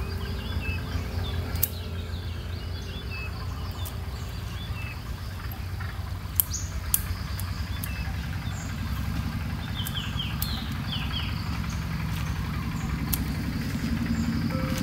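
Birds chirping in short falling calls over a steady low rumble. A few sharp clicks stand out, the loudest two about half a second apart near the middle.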